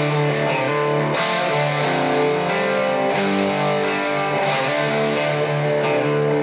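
Background music led by guitar, held chords changing every second or so.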